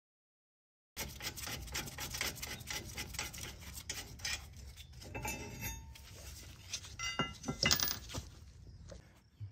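Caliper bracket bolts being backed out and the caliper bracket pulled off a Jeep Grand Cherokee's rear brake. A run of quick metal clicks starts about a second in, followed by several ringing metal clinks about five to eight seconds in.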